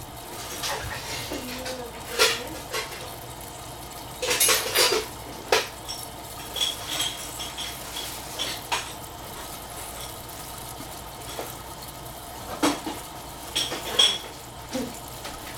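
Jars, bottles and dishes clinking and knocking as they are moved about while hunting for a jar of chili sauce: scattered single clinks, a few with a short ring, with a cluster about four seconds in and another near the end.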